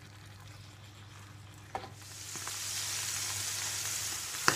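Sausages sizzling in oil and red wine in a ridged griddle pan. The sizzle is faint at first and grows much louder about two seconds in, just after a sharp click, with another click near the end.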